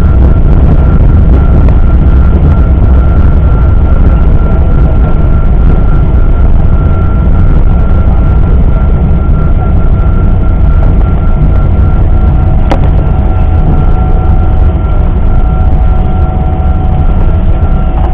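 Loud, steady low rumble inside the cabin of a Boeing 777 during landing, with a steady high whine over it and a single click about 13 seconds in.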